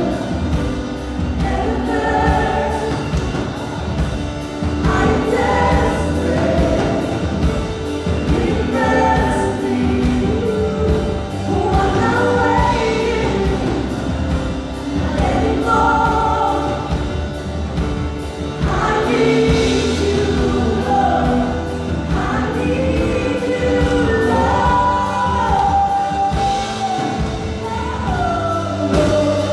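Live gospel worship music: a vocal team singing a worship song together over a band with a steady drum beat and bass.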